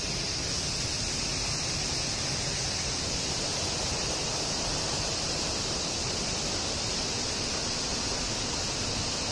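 Steady outdoor background noise: a constant, even rushing hiss with a brighter high-pitched band, and no distinct events.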